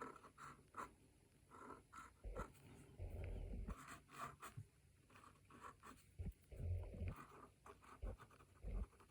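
Fine-liner pen drawing on a card postcard: faint, short, irregular scratching strokes, with a few soft low bumps.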